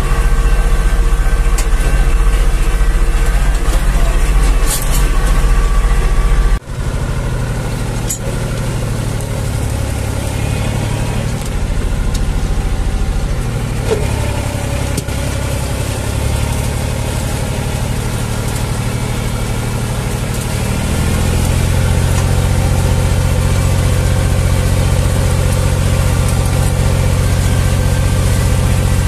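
Zetor 5011 tractor's three-cylinder diesel engine running steadily under load, pulling a two-furrow plough, heard from inside the cab. The sound changes abruptly about six seconds in, and the engine grows a little louder and higher in pitch after about twenty seconds.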